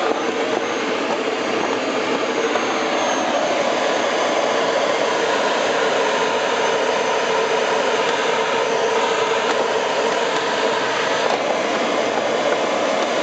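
Steady rush of air streaming over a Nimbus 4T glider's canopy and fuselage in flight, heard inside the cockpit, with faint steady tones running through it.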